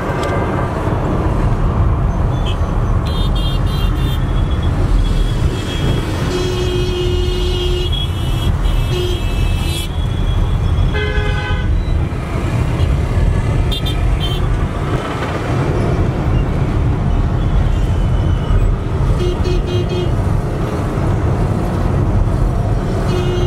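Road traffic heard from a moving car: a steady low road and engine rumble, with vehicle horns tooting again and again, mostly short high-pitched beeps and one lower horn blast about eleven seconds in.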